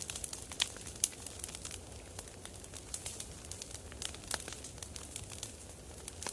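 Campfire crackling: wood burning with irregular sharp pops and snaps over a steady low rush of flame.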